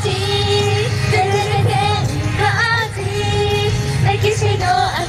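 Female idol group singing a J-pop song live over a pop backing track, with long held notes that scoop up and down in pitch over a steady bass.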